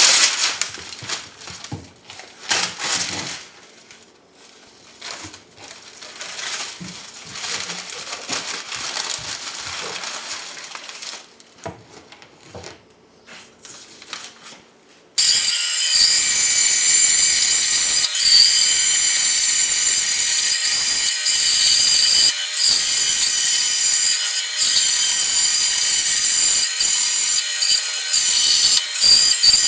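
Paper rustling and crinkling as a paper pattern is handled and laid on a board. About halfway in, a band saw comes in loud and runs steadily, its blade cutting through a red oak board, with a few brief dips.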